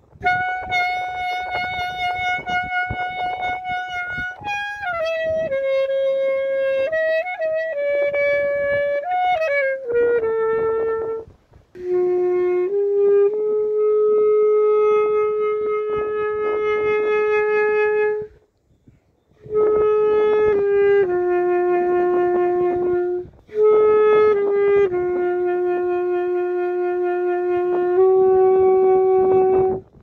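Saxophone playing a slow melody of long held notes, pausing briefly between phrases.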